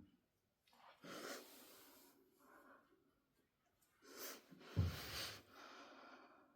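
Faint rustling and handling noises, with a soft thump about five seconds in.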